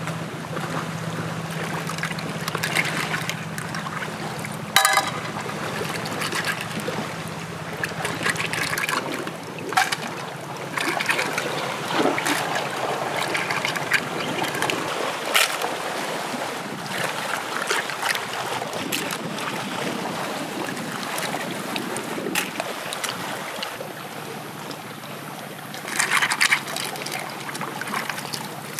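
Hands washing clams in shallow water: continuous splashing and trickling, with frequent short clicks of shells knocking together and a bigger splash near the end.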